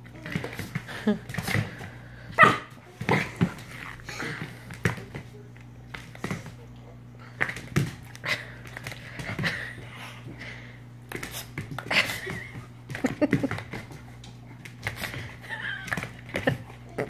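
Australian Shepherd puppy playing with a bottle brush: small dog noises amid scattered clicks and taps on a tile floor.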